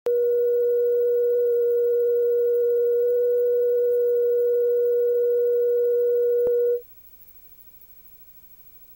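Steady line-up reference tone that goes with the colour bars at the head of a videotape: one unwavering pure pitch. It cuts off suddenly about seven seconds in, leaving near silence.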